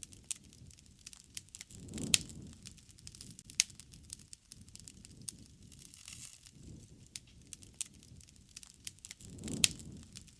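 Wood fire crackling, with frequent sharp pops and snaps over a low rumble of flames that swells about two seconds in and again near the end, each swell topped by a louder pop.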